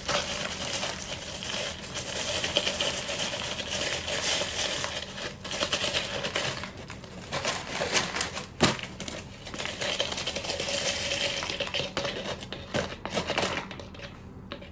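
Granular ballast pouring and rattling through a cut-off plastic bottle funnel into the hollow plastic weight of a pond bottom drain, a dense patter of small clicks as the grains trickle in. One sharp knock about eight and a half seconds in.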